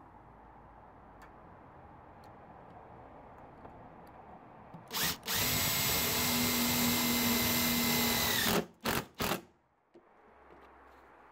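Cordless drill driving a self-drilling screw through a restrictor stud into an aluminium window frame. About five seconds in, it runs steadily with a whine for about three and a half seconds, then gives two short bursts.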